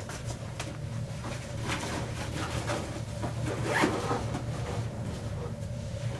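People handling clothing and gear: irregular rustling and scraping with zipper-like pulls, over a steady low hum.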